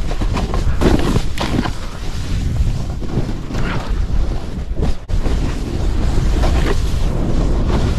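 Wind rushing over the microphone while a snowboard's edge carves and scrapes through chopped-up snow, swelling with each turn. A momentary break comes about five seconds in.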